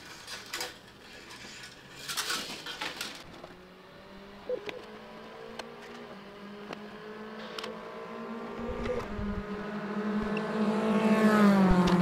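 Rustling and a few clicks as filament is fed into the printer, then the stepper motors of a Bambu Lab A1 3D printer hum with several steady pitched tones that slowly shift in pitch and climb near the end.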